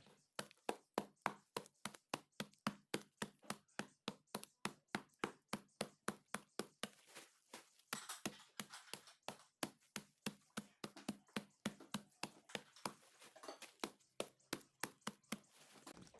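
A steady series of sharp knocks, about three a second, with a short break and a denser, rougher stretch just before the middle.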